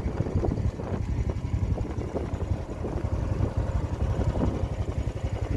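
Small tour boat's motor running steadily with a low putter, mixed with wind rumbling on the microphone.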